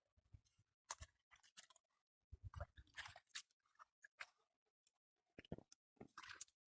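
Hands working through mud and shallow water while fishing by hand: faint, irregular short squelching and crunching noises with quiet gaps between them.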